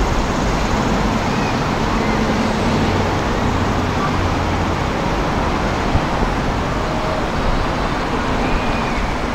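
Steady outdoor background noise with a low rumble, and a single brief click about six seconds in.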